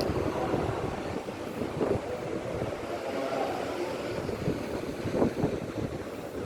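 Diesel bus engines running in a bus terminal, an uneven low rumble, with strong wind buffeting the microphone.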